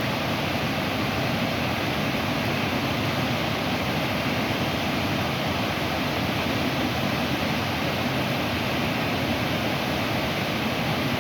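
Waterfall rushing, a steady even roar of falling water over a long, tall drop.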